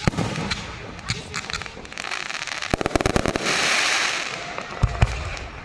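Aerial fireworks show: rapid crackling pops throughout, a dense crackling hiss about three and a half seconds in, and two deep booms near the end.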